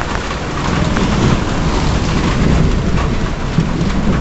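Heavy rain pouring onto a flooded paved lot: a steady hiss of drops splashing into puddles over a low rumble.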